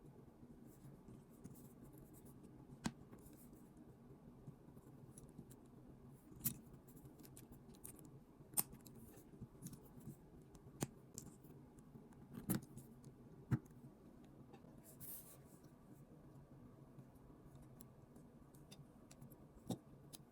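Small plastic clicks of LEGO pieces being handled and pressed together, a few sharp ones scattered a second or more apart, over a faint steady hum.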